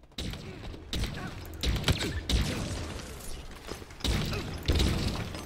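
Video game combat audio from a first-person shooter: weapon fire and blasts, with several sharp loud hits over a low rumble.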